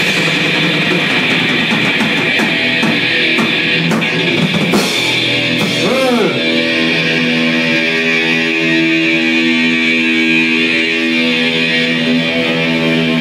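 Live hardcore-metal band: distorted electric guitar played loud through an amplifier, with scattered sharp hits in the first few seconds. From about six seconds in a chord is held and rings out steadily.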